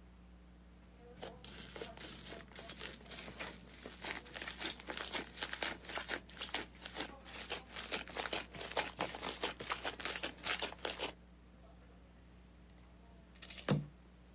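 Slime being squeezed and worked by hand, giving a dense run of crackling pops that stops suddenly about eleven seconds in. Near the end comes one short, louder sound.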